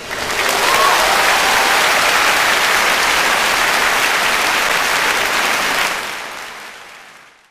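Audience applauding after a song, swelling in the first second, holding steady, then fading out over the last second and a half.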